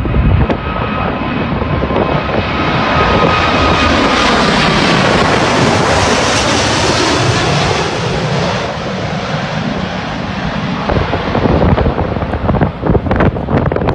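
Airbus A380's four jet engines at go-around thrust as it passes low overhead: a loud jet noise with a whining fan tone that falls slightly in pitch, swelling to a peak about six to seven seconds in and easing as the aircraft climbs away. Gusts of wind hit the microphone near the end.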